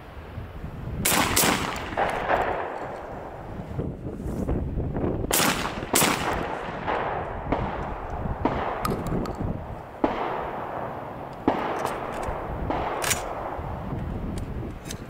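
Shotgun shots from a Beretta A400 Xcel semi-automatic shotgun: several sharp reports, about a second in, again at about six seconds, then twice more around ten and eleven seconds, over steady background noise.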